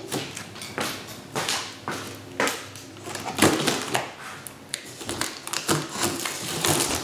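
Utility knife slitting the packing tape along a cardboard box's seam, with tape and cardboard scraping and rustling under the hands in a series of irregular scratchy strokes and sharp clicks.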